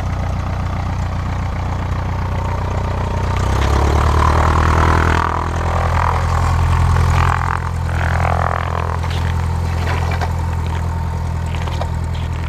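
1946 Cessna tail-dragger's propeller engine running as the plane taxis on the ice. The engine swells louder twice, from about three and a half seconds in and again around six seconds, as the throttle is opened to turn and move off, then settles to a steady run.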